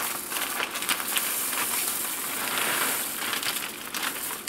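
Steady crackling hiss from hot broth in an enamelled cast-iron pot, with small clicks as dry lentils are stirred in with a wooden spoon.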